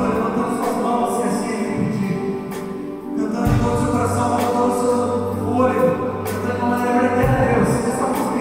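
Music with voices singing over held bass notes that shift every few seconds.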